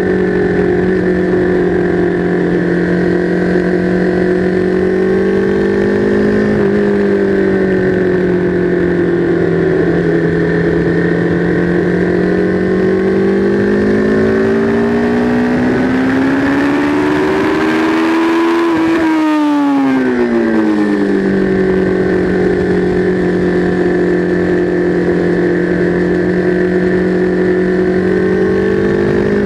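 Sport motorcycle engine running hard on a race track, heard from a camera mounted on the bike. The note holds high and fairly steady, climbs in pitch for several seconds past the middle, then falls quickly and levels off again, with a brief dip and rise right at the end.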